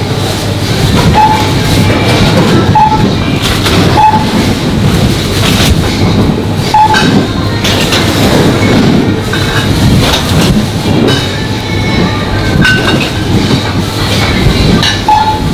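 Supermarket background noise: a continuous rattling clatter with short, high, single-pitch beeps sounding about five times at uneven intervals.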